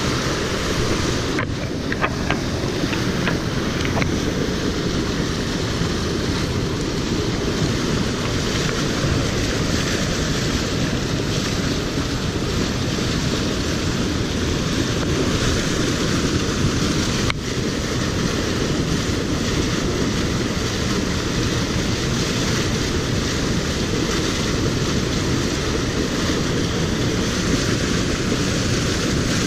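Steady rush of a mountain stream running over rocks and small cascades, with a few light clicks about two seconds in.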